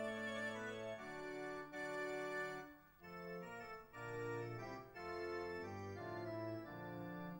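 Wind orchestra playing held chords that change every second or so, with a short break about three seconds in before the next phrase.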